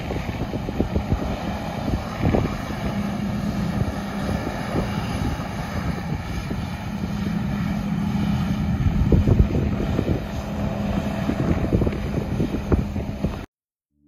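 A vehicle engine running steadily under heavy wind rumble on the microphone, with scattered low thumps; it cuts off abruptly near the end.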